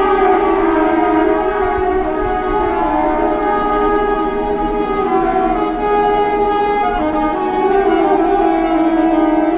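Several diesel locomotive horns sounding together in one long, loud held chord, with the notes shifting a few times as individual horns change tone.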